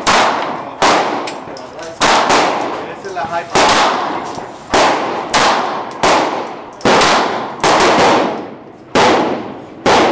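Semi-automatic pistol shots fired on a range firing line, a dozen or more sharp reports at uneven intervals of roughly half a second to a second, each trailing off in an echo.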